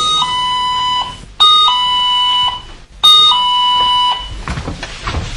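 Doorbell ringing three times, each ring a two-note ding-dong: a short higher note falling to a held lower one. Irregular clattering and shuffling noises follow near the end.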